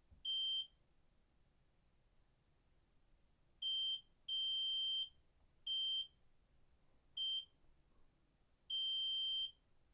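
Digital multimeter's continuity beeper sounding six times in irregular, short to longer beeps as the probes touch the motherboard pads, each steady high-pitched beep signalling a short (continuity) between the points probed.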